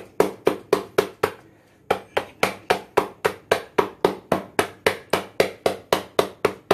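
Silicone loaf mould full of cake batter knocked repeatedly on a granite worktop, about four knocks a second with a short pause a little over a second in. This is done to settle the batter before baking.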